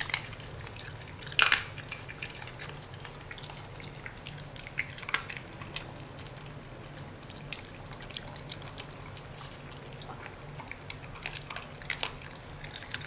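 Small dogs chewing raw chicken wing pieces from plastic bowls: scattered wet clicks and crunches, with one sharper knock about a second and a half in.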